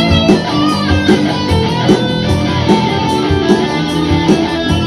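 Recorded electric guitar over a drum backing track, played back through a pair of studio monitor speakers: sustained, wavering lead notes over a steady beat.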